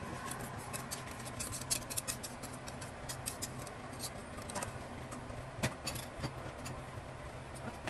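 Quick run of small clicks and scrapes from a metal pot being tipped and handled while thick custard topping pours out of it, thinning to a few single clicks after about four seconds. A steady low hum lies underneath.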